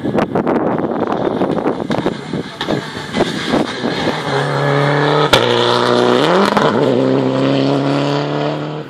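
Rally car engine heard on a stage: irregular crackling for the first few seconds, then a steady engine note that climbs quickly in pitch a little after six seconds and holds there. A single sharp click comes just past five seconds.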